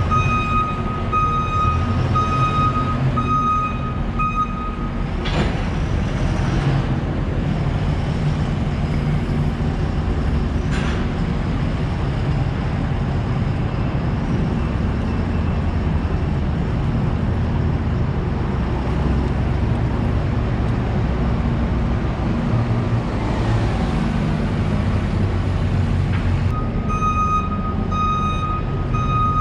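A vehicle's reversing alarm beeping in an even on-off pulse over the low running of a heavy engine. The beeping stops about four seconds in, leaving the engine rumble and street noise, and starts again near the end.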